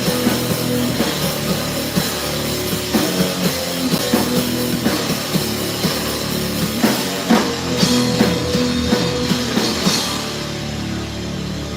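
Live rock band playing loud distorted guitars over a pounding drum kit, thinning out toward the end as the song winds down.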